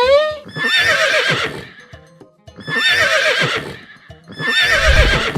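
Horse whinny sound effect, three times about two seconds apart, over background music.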